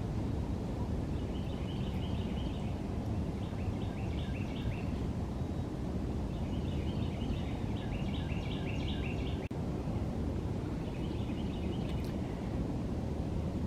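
A songbird singing in repeated phrases of quick high notes, several seconds apart, over a steady low rumble of outdoor background noise.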